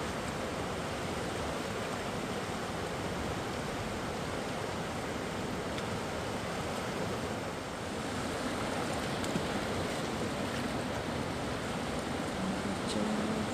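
Mountain river flowing steadily, with a few faint clicks in the second half.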